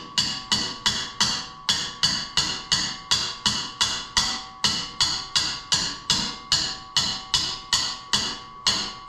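Hammer striking the yoke and U-joint of a rusty truck driveshaft in steady blows, about three a second, each with a short metallic ring. The U-joint is seized in the yoke with rust and salt.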